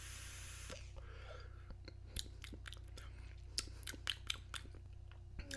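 Faint, irregular crackling of an e-cigarette being drawn on: a short hiss at the start, then a dozen or so small sharp pops and clicks.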